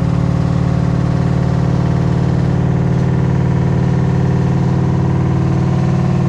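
LG ThinQ WM12WVC4S6 washing machine spinning at 1000 rpm: a loud, steady hum with a fast, even pulsing, which the uploader presents as the machine's spin noise.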